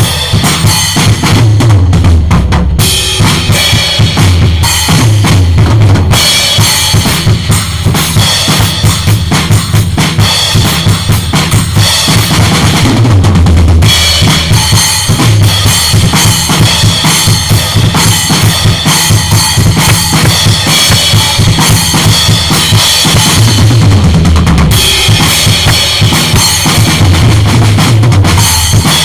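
A used maple-shell drum kit played continuously: bass drum, snare and rim hits under a constant wash of cymbals, with no pauses.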